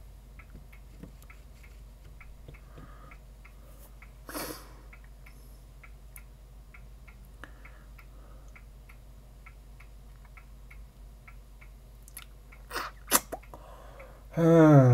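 Quiet room with a low steady mains hum and a faint, regular ticking about twice a second. About four seconds in there is one short breath noise, and near the end two short clicks and then a man's low, falling 'hmm'.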